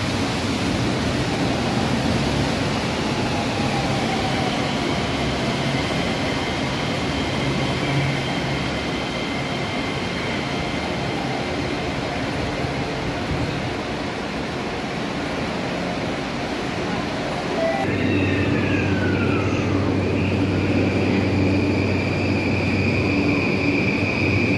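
Electric train running, a steady rush of noise with faint high whines gliding in pitch. About 18 seconds in, the sound changes abruptly to a steadier hum with a strong, steady high whine.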